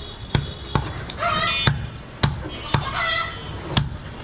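Meat cleaver chopping goat meat on a wooden chopping block: a series of about six sharp chops, each with a dull thud.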